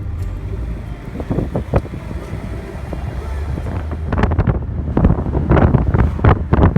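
Wind buffeting the microphone in irregular gusts over a steady rushing noise, growing louder from about four seconds in.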